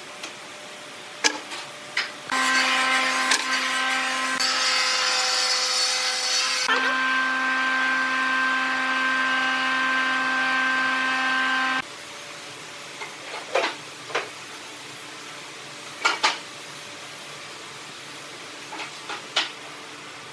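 An electric power tool motor runs steadily for about ten seconds, its pitch shifting slightly partway through, then cuts off suddenly. After that come several light knocks of wood and tools being set down on the bench.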